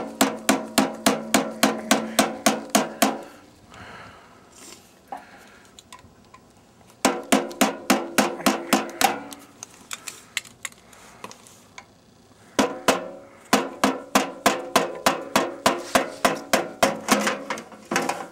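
Hammer blows on a metal furnace blower assembly, about four a second, each with a short metallic ring. The blows come in three runs with pauses of a few seconds between: the first stops about three seconds in, a short second run comes around eight seconds in, and the last starts about twelve and a half seconds in.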